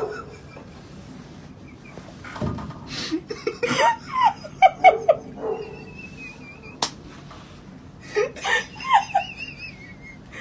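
A person laughing in two runs of short bursts, with a single sharp click in between.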